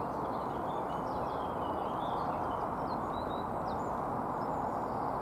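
Birds chirping faintly, with short high calls scattered through, over a steady outdoor background rush.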